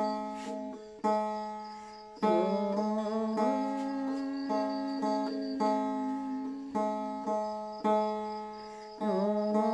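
Long-necked folk lute with a round skin-covered body and a bamboo neck, plucked about once a second. Each stroke rings out and fades over the same low note, and the pitch slides down and back up twice.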